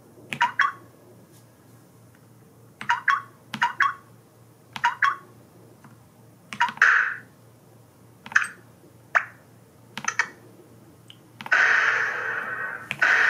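Skyloong GK104 Pro keyboard's built-in sound effects played through its small speaker: a series of short electronic chirps and beeps, each set off by a key click, as the effect modes are cycled. A louder continuous electronic sound starts near the end.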